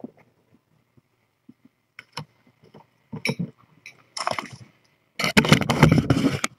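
Handling noise from the camera as it is picked up and moved: scattered knocks and clicks, then a loud stretch of rubbing and bumping against the microphone near the end.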